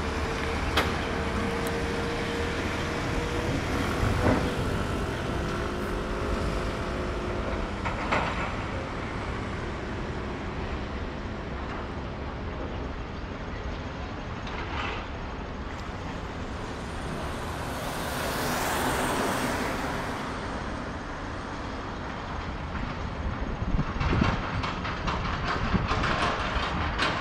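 Engine and road noise of a moving road vehicle heard from inside: a steady low rumble, with a faint whine over the first several seconds and a surge of hiss about two-thirds of the way through.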